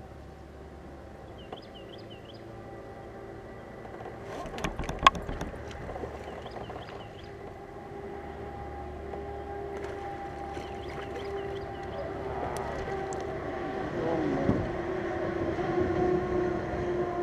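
A distant motorboat engine drones steadily and grows gradually louder as it comes closer. A bird gives three short bursts of quick chirps, and a few sharp clicks and knocks of gear handling on the kayak come about four to five seconds in.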